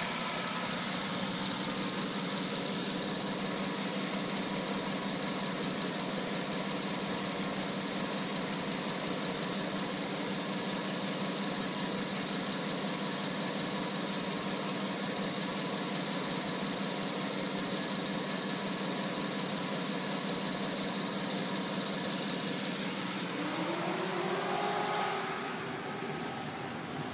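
Jaguar XJS 6.0-litre V12 idling steadily, with its electric cooling fans running at full speed; the idle is stable now that a vacuum leak at the Vee top plate gasket and breather seals has been fixed. Near the end there is a brief rising whine, then the level drops and the hiss thins as the fans cut out.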